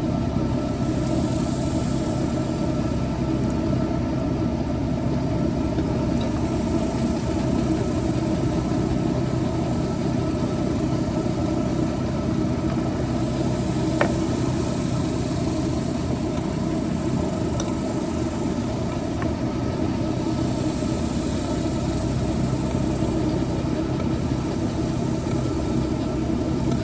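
A steady engine-like drone running evenly at idle, with one faint click about halfway through.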